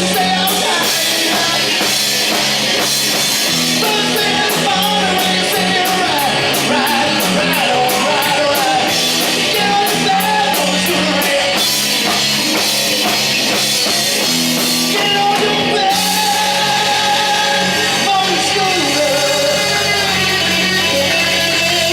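Rock band playing live, a voice singing over guitar, bass and drums, with steady cymbal strokes that drop out for a few seconds midway.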